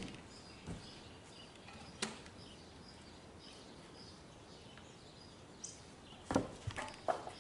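Knocks and clacks of a cant hook on a log and the steel sawmill bed as the log is levered over: one at the start, one about two seconds in, and a quick cluster near the end, over a quiet background.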